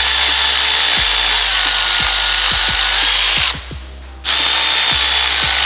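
Air ratchet running down the 13 mm bolt that holds the fuel pump lifter in a GM Gen V LT V8 block's lifter valley, a loud air hiss in two runs with a short break a little past halfway.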